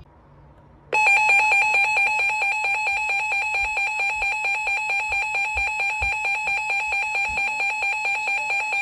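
Emergency alert attention tone: a loud, shrill electronic tone that starts about a second in and holds at one pitch with a quick regular pulse. It signals the start of a new broadcast weather warning.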